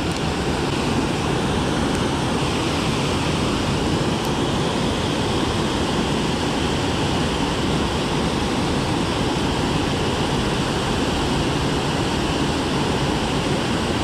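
Water pouring over a low river spillway dam and churning in the pool below, a steady rushing with no breaks.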